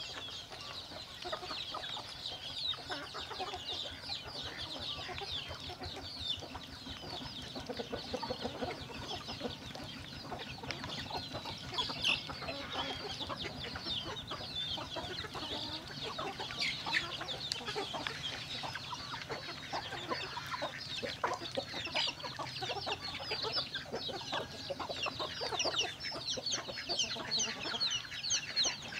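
A flock of chickens clucking and calling, many short high calls overlapping without a break.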